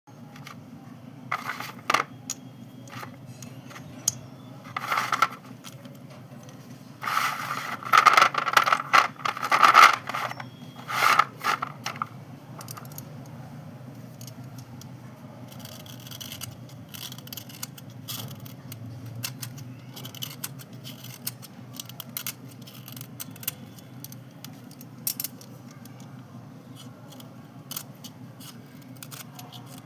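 Dry white slate pencils and chalk pieces being scraped and handled. A run of louder scraping strokes comes in the first dozen seconds, then light scattered clicks and taps, over a steady low hum.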